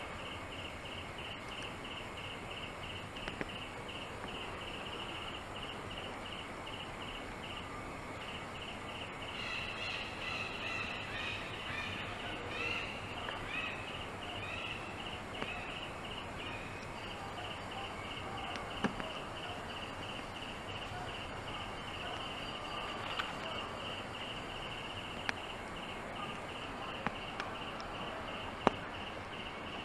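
Outdoor ambience: a steady, evenly pulsing insect chirr. A spell of chirping calls comes from about nine to fourteen seconds in, and a few sharp clicks sound later on.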